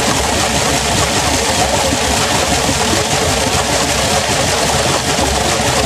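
A machine running steadily, its motor driving a metal rotor inside a chamber full of mist, giving a loud, even rushing noise over a low hum.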